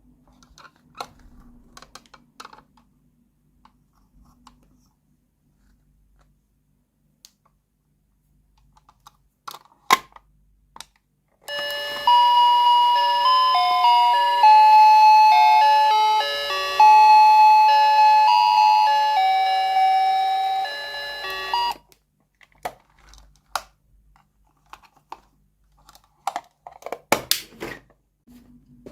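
A toy kitchen set's electronic sound chip plays a jingle of stepped beeping notes for about ten seconds, starting a third of the way in and cutting off suddenly. Light plastic clicks and taps come before and after it as the toy is handled.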